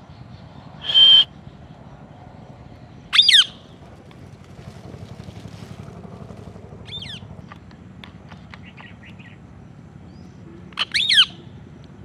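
Rose-ringed parakeet giving loud, high calls: one about a second in, another around three seconds, and two or three together near the end, with fainter short chirps in between.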